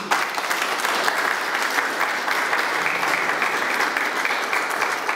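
Small audience applauding with a steady round of hand clapping.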